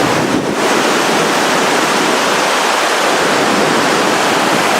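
Waterfall: a loud, steady rush of falling water, heard up close.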